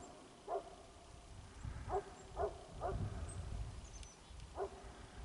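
Short barking calls from an animal, about five single barks at uneven intervals, with a few faint high bird chirps.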